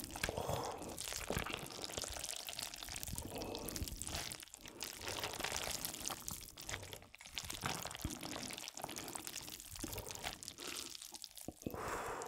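Close-miked wet, sticky eating sounds of saucy corn-cheese Buldak stir-fried noodles being worked and slurped, with many small clicks and a few short pauses.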